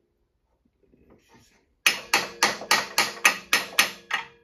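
Hammer striking metal nine times in quick succession, about four blows a second, each with a short metallic ring, knocking the three-phase motor's mounting fixing into line on the lathe bracket.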